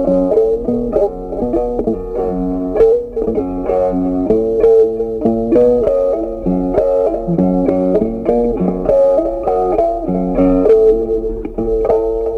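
Background music: a plucked guitar tune, one note after another with a quick, even pulse.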